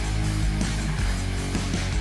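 Background music: a rock track with electric guitar.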